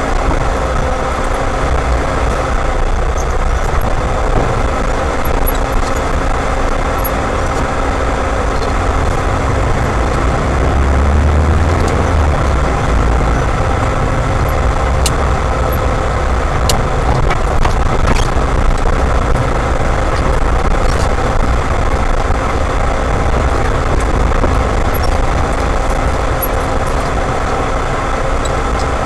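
A moving car's engine and tyre noise, a steady, loud rumble with a low swell about ten seconds in.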